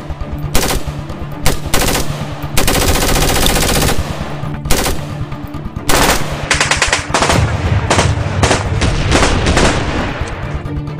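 Automatic gunfire: single shots in the first two seconds, a long rapid burst from about two and a half to four seconds in, then more bursts and shots from about six seconds on.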